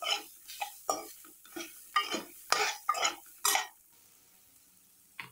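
A steel spoon stirring and scraping onion, grated coconut and dried chillies around an aluminium kadai, with about eight quick scrapes over three and a half seconds before it stops. A single short tap follows near the end.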